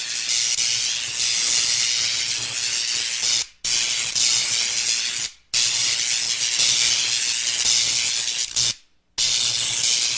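Electricity sound effects: a steady, harsh crackling hiss of electric current with a low hum underneath, played as separate clips with short silent breaks between them, about four in all.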